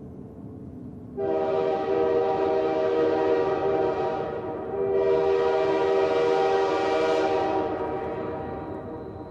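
Train air horn sounding a steady multi-note chord in two long blasts. The first starts abruptly about a second in, the horn dips briefly around four and a half seconds, then the second blast fades away near the end, over a steady low rumble.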